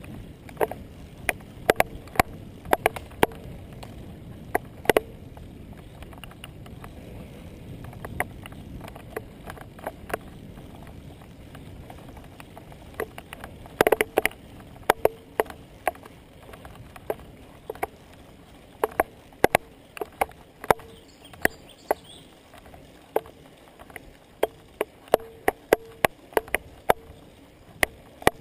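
Road bicycle riding up a paved climb, picked up by a handlebar-mounted camera: a low rumble of tyres and wind, heavier in the first half, with irregular sharp clicks and knocks throughout.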